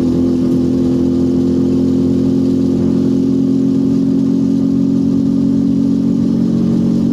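The 200 cc engine of a small enclosed-cab vehicle running steadily under way, heard from inside the cab as an even, unchanging drone.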